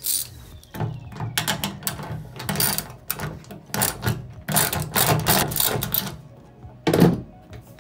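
Hand ratchet with a 7/16-inch socket clicking in repeated bursts as it backs out a bolt on the tonneau cover's locking rod bracket, with a louder knock near the end.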